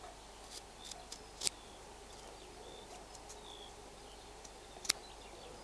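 Grafting knife slicing a long oblique cut along a woody scion, heard as a few light clicks and scrapes, the sharpest a little before the end. Faint bird chirps in the background.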